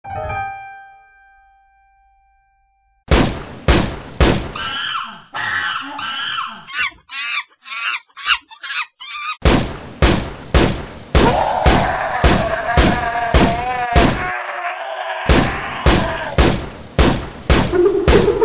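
Soundtrack music. A single ringing note fades away, and about three seconds in a track starts with a hard, regular percussive beat under a melody.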